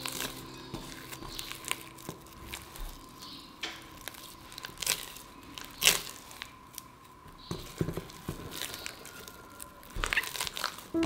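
A hand kneading crumbly, still-shaggy milk bread dough in a glass bowl. It makes a string of irregular soft squashing and tearing sounds with a few sharper clicks.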